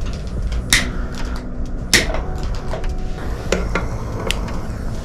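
Metal ladle clinking against an earthenware pot and ceramic bowls as miso soup is ladled out. Two sharp clinks come about a second apart near the start, then a few lighter taps.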